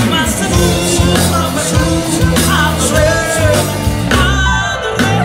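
Live band playing upbeat rock and roll with a singer, loud and steady with a regular beat.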